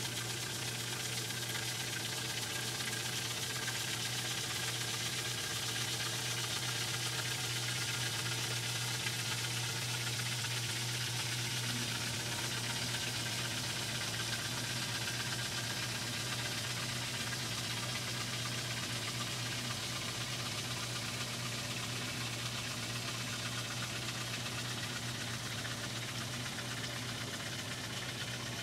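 LG mega-capacity top-loading washing machine spinning its drum while water sprays into the tub: a steady motor hum under a continuous hiss of spraying water.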